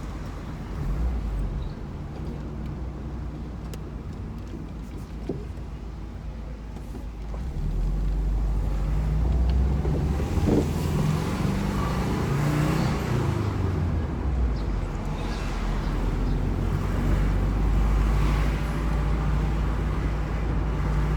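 Cabin sound of a 2002 Subaru WRX under way: the turbocharged flat-four engine and road noise. The engine gets louder about eight seconds in as the car accelerates, and its pitch rises and drops back a few times in the middle.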